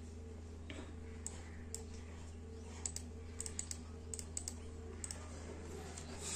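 Faint, irregular light clicks and taps, several a second in short clusters, over a steady low hum.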